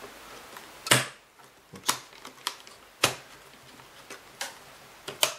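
Plastic clicks and snaps from a Kirby Avalir vacuum's scuff plate and housing as the plate is pushed and clipped into place: about seven sharp, separate clicks, the loudest about a second in and two close together near the end.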